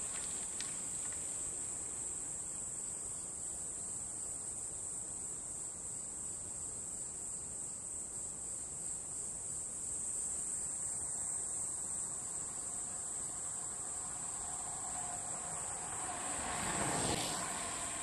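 Steady, high-pitched insect chorus. Near the end a road bicycle passes close by, the whir of its tyres swelling briefly and fading.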